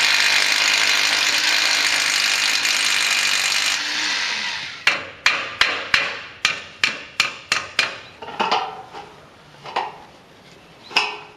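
A cordless drill runs steadily for about four seconds, then stops. A hammer strikes about nine times in quick, even succession, roughly three blows a second, followed by a few softer knocks near the end.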